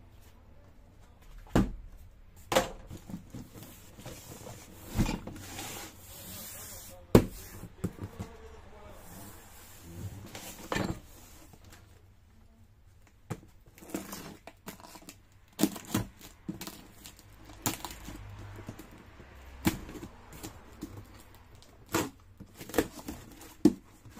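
A cardboard carton being handled and opened on a metal worktop: scattered knocks and bumps of the box and the parts on it, with tearing of the taped cardboard lid and crinkling of the packaging.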